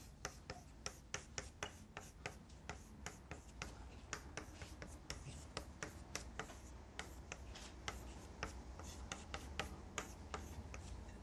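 Chalk writing on a blackboard: a faint, quick run of short taps and scratches, several each second.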